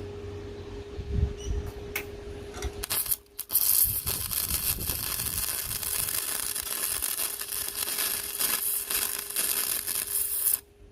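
MIG welder arc crackling: a brief strike about three seconds in, a short stop, then a steady run of about seven seconds that cuts off abruptly near the end. The wire is feeding slowly, which the welder suspects is not fast enough.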